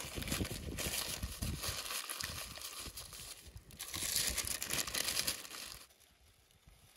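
Parchment paper crinkling and rustling as it is folded and pressed around a roll of raw lamb tail fat, louder about four seconds in and stopping near the end.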